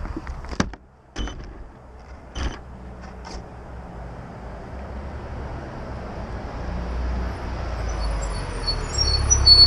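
Road vehicle engine rumble growing steadily louder over several seconds, after a few sharp knocks in the first few seconds.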